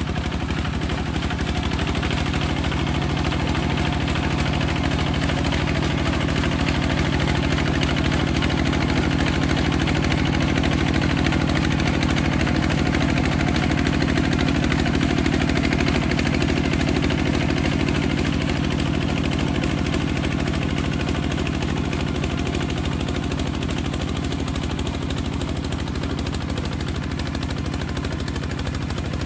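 Kubota bulldozer's engine running steadily at an even speed.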